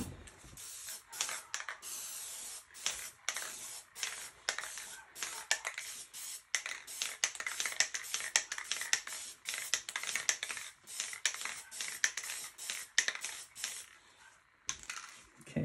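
Aerosol spray-paint can spraying white paint in a string of short hissing bursts with brief gaps between, stopping about a second before the end. A single sharp knock right at the start is the loudest sound.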